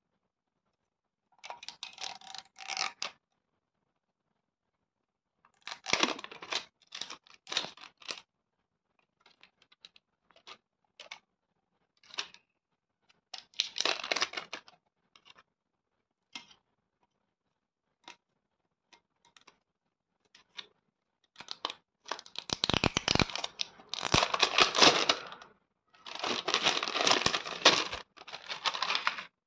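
Hands tearing and crinkling clear plastic wrapping off a metal perfume tin, in separate bursts of rustling with scattered small clicks, loudest over the last several seconds.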